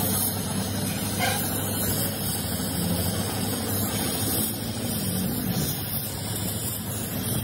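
Steady roar of a gas torch flame as lead is melted onto a lead-acid battery's cell connectors, with a low engine drone underneath.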